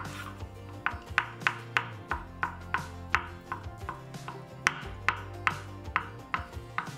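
Kitchen knife chopping boiled eggs on a bamboo cutting board: sharp, even taps of the blade on the board, about three a second, over quiet background music.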